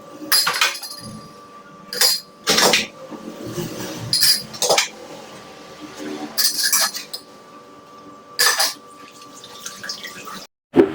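Dishes and glassware clinking and knocking as they are handled, in a string of about nine short clatters.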